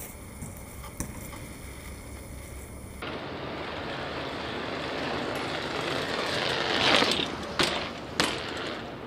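BMX bike tyres rolling over brick paving, swelling louder as the bike approaches and passes close by, followed by two sharp knocks just over half a second apart near the end.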